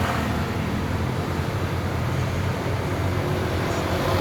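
Steady road and traffic noise with a low hum, heard from inside a small moving electric vehicle.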